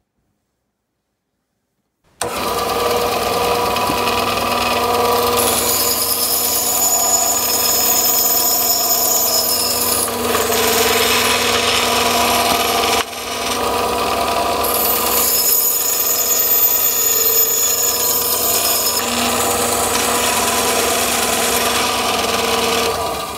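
Bandsaw running and cutting a wooden block for a trailing-edge bending tool, starting abruptly about two seconds in. It is a loud, steady machine sound with a motor hum and a high hiss, dipping briefly about halfway through.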